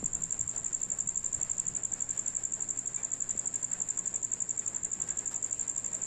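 A cricket trilling steadily: one high chirping tone made of rapid, even pulses, many to the second.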